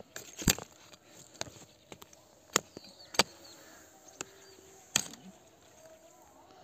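Small hatchet chopping at thin branches of a leafless bush lying in snow: a handful of sharp, irregularly spaced strikes about a second apart.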